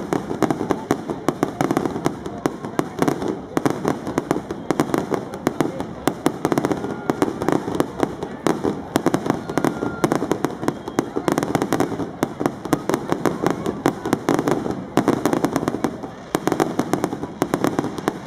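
Aerial fireworks bursting in a dense, continuous barrage: many rapid sharp bangs and crackles overlapping, with a brief lull about sixteen seconds in.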